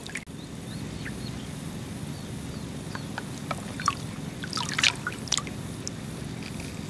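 Water sloshing and lapping around an angler wading in a reservoir, with a few small splashes and clicks bunched about four to five seconds in, over a steady low background rumble.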